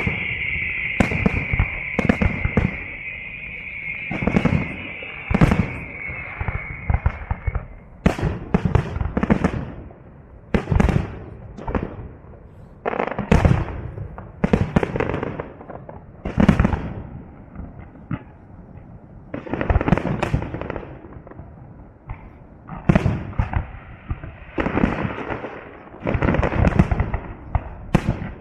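Fireworks display: aerial shells bursting every second or two, each bang trailing off into crackling. A high, steady whistle-like tone sounds over the first seven seconds or so.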